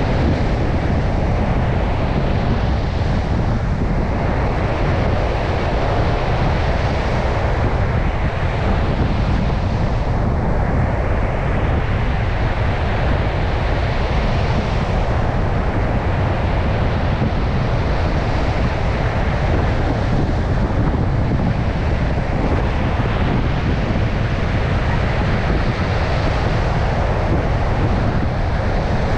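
Heavy storm surf breaking continuously on a beach, surging and easing every few seconds, with strong wind rumbling against the microphone.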